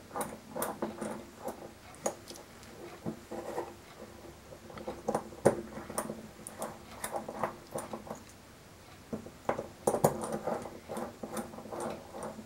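Small metallic clicks and light scraping as percussion-cap nipples are threaded by hand into a Colt 1851 Navy replica's steel cylinder with a nipple wrench, the wrench tip clinking on the nipples as the cylinder is turned in the hand. The clicks come in clusters, with a short pause a little past the middle.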